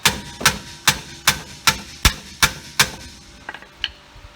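Hammer blows on steel, driving the worn rear wheel hub bearing assembly out of a Toyota Corolla: eight sharp, ringing metallic strikes at about two and a half a second, then a few lighter taps near the end.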